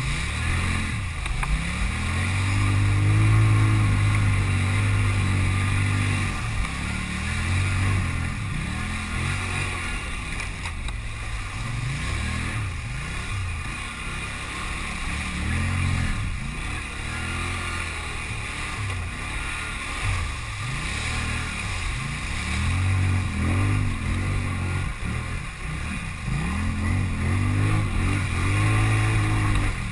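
Polaris Sportsman 850 ATV's twin-cylinder engine revving up and down again and again as it drives through shallow water, with water splashing against the quad.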